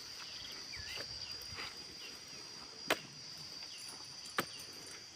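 Steady high-pitched insect chirring from crickets, with a few faint chirps in the first second. Two sharp clicks about three and four and a half seconds in are the loudest sounds.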